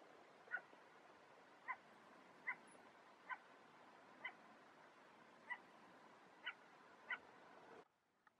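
Gray wolf barking: eight short, faint barks about a second apart.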